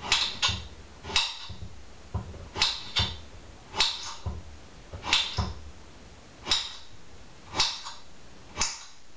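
Kitchen knife slicing raw squash into slivers on a cutting board: a short, sharp cut-and-knock about once a second, some strokes in quick pairs.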